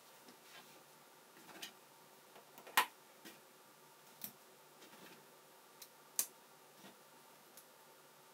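Lego plastic pieces clicking as they are pressed together and handled: scattered sharp clicks, the loudest almost three seconds in and another about six seconds in.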